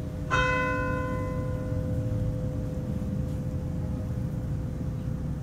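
A bell struck once, about a third of a second in. Its clear ringing tone fades slowly over several seconds above a steady low outdoor rumble.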